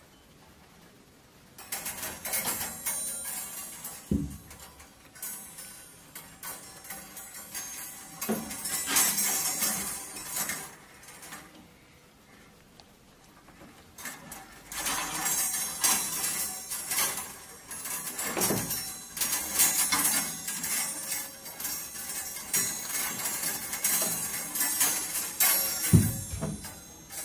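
Metal clothes hangers jangling and scraping on a wardrobe rail, with clothes rustling, as a baby monkey climbs among them; a few dull knocks, with a lull a little before halfway.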